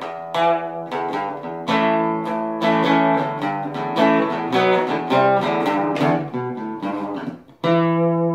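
Guitar music: picked and strummed chords in a steady run, then a final chord struck near the end that rings on.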